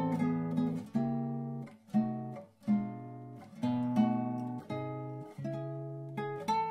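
Background music: an acoustic guitar plucking and strumming chords, each one ringing out and fading before the next, about one a second.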